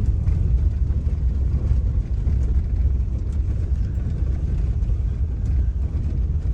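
Steady low rumble of a car driving along, with engine and road noise heard from inside the cabin.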